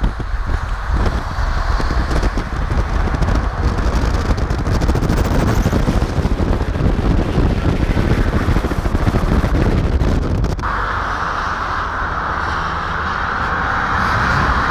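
Road and wind rush of a car driving at motorway speed beside a semi-truck. About ten seconds in, it cuts abruptly to a steadier hiss of passing motorway traffic.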